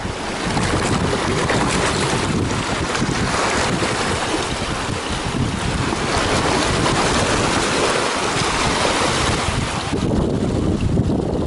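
Sea surf washing and churning over rocks, with wind buffeting the microphone in a heavy low rumble. The hiss of the water thins out about ten seconds in.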